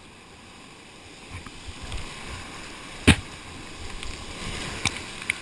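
Whitewater rushing around a kayak running a rapid, getting louder as the boat drops in. A single sharp, loud hit about three seconds in stands out, and two smaller sharp hits come near the end.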